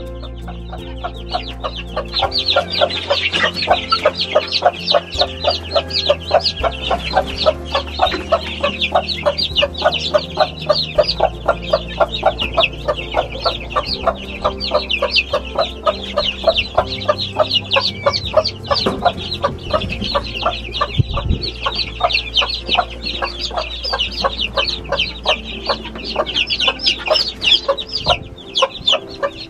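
A crowd of young chicks peeping rapidly and without a break, with a broody hen clucking among them.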